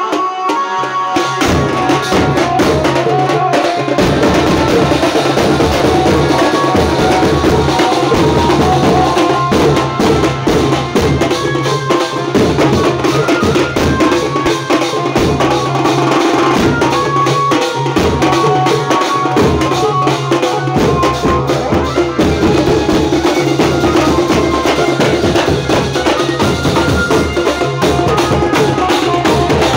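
Street banjo band playing: fast, continuous drumming on several large double-headed drums beaten with sticks, with a melody line held over the drums.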